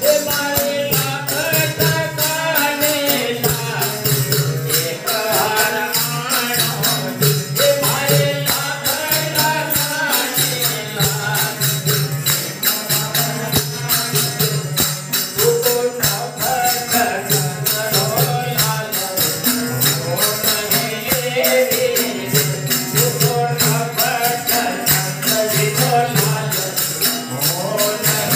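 Hindu devotional bhajan: a lead voice singing through a microphone over a harmonium's held notes, tabla, and small hand cymbals (manjira) keeping a fast, even jingling beat.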